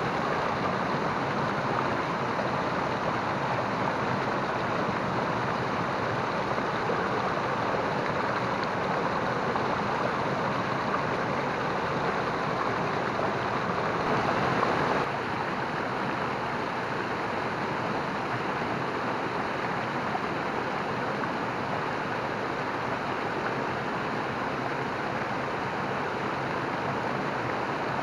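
Water of a small rocky waterfall cascading over boulders into a pool: a steady rushing, slightly louder in the first half and a little softer from about halfway through.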